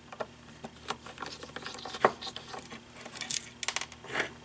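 Scattered light metallic clicks and taps of small parts and screws being handled while a graphics card is taken apart, with a sharper click about two seconds in and several more near the end.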